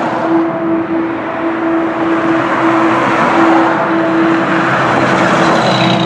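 Experimental ambient sound-art track: a steady held drone tone under a loud wash of rushing noise that comes in suddenly and swells through the middle.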